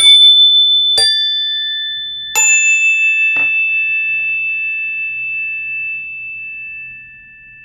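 Three struck bell-like chime tones about a second apart, each a clear high ring that lingers and slowly fades, the last one ringing on to the end; a duller knock comes about three and a half seconds in.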